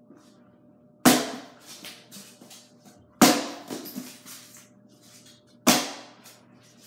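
Karate chops breaking styrofoam slabs: three sharp cracks about two seconds apart, each trailing off in softer crackling.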